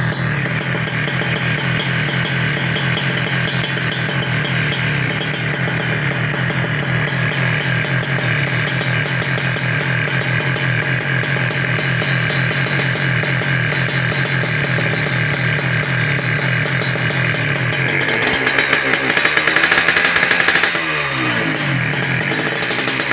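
Suzuki Satria 120 two-stroke single-cylinder motorcycle engine idling steadily. Late on it is revved up for a couple of seconds and falls back to idle, then is blipped again at the very end.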